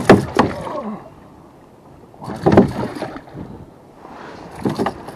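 Hooked trout thrashing and splashing at the surface right beside a plastic kayak, with sharp knocks against the hull. The loudest burst comes at the start, then two shorter bursts of splashing follow, about two and a half seconds in and near the end.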